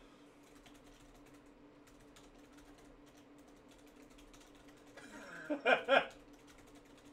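Computer keyboard typing: a run of quick, faint key clicks as names are typed in. A short, louder burst of a voice cuts in about five and a half seconds in.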